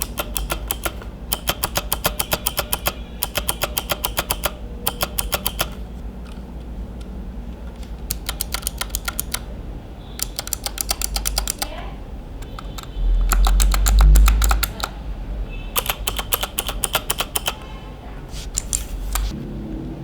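Typing on a mechanical keyboard with Outemu switches, the E-Dra EK361W: quick runs of key clicks lasting a second or two each, with short pauses between them. A steady low background hum runs underneath, and a louder low rumble comes through a little past the middle.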